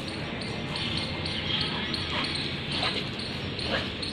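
Garden hose spraying water that splatters on a wet concrete patio, with four short sharp splashes or knocks in the second half.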